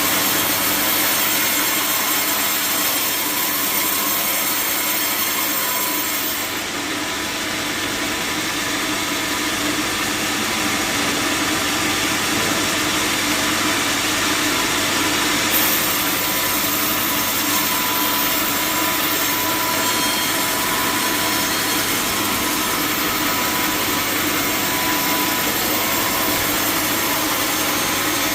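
A large sawmill saw cutting lengthwise through a giant log, a loud, steady, continuous sawing noise that changes slightly in its highest part about six seconds in and again about fifteen seconds in.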